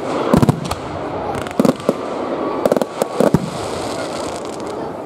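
Aerial firework shells bursting overhead: clusters of sharp bangs about four times in the first three and a half seconds, over a steady rush of noise.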